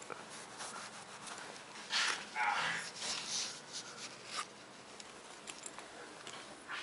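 Bedding rustling as a hand shakes a sleeping person's shoulder through a duvet, with a short sleepy groan about two and a half seconds in and small soft knocks.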